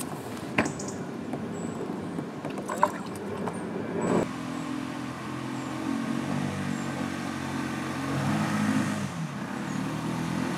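A few sharp knocks as an inflatable dinghy is handled off a wooden jetty onto the water, then, from about four seconds in, a small outboard motor running under way, its pitch rising and falling at constant throttle. The over-revving is the sign of the propeller losing grip: the builder puts it down to turbulent, aerated water coming off the hydrofoil wings, which others call cavitating the prop.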